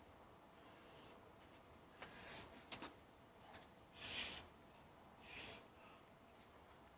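A climber's hard, unvoiced exhales of effort, three of them about two, four and five and a half seconds in, with a few small taps and scuffs of hands and shoes on sandstone near the top of a boulder.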